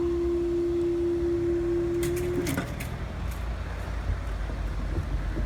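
Level crossing warning alarm sounding one steady tone, which cuts off about two and a half seconds in with a few sharp clicks. A low rumble of traffic and wind follows.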